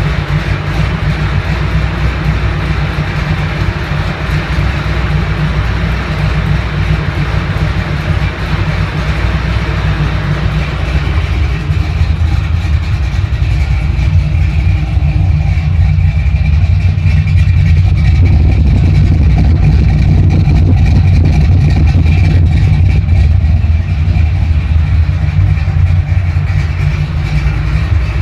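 Freshly built Shafiroff 427 V8 running steadily at idle on its first fire-up, with a deep, even rumble that grows louder about halfway through.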